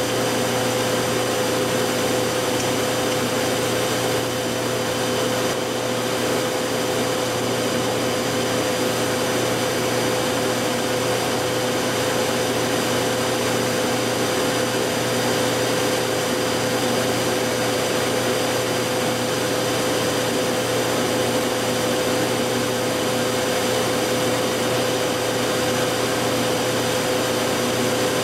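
A 40 hp Monarch Series 90 lathe running steadily while taking a turning pass along a long, somewhat bowed length of pipe used as a test bar. It makes an even whir with a constant mid-pitched whine.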